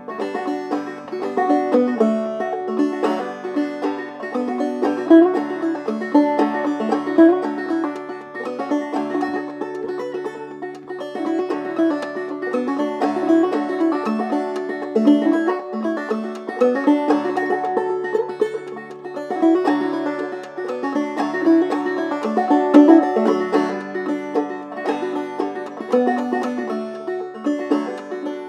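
Solo clawhammer banjo: a Kevin Enoch Dobson open-back banjo in open D tuning (f#DF#AD) playing an old-time tune, a steady run of picked notes over a low ringing drone.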